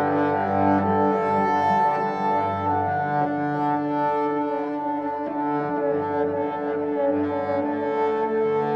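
Slow instrumental background music with long held low notes.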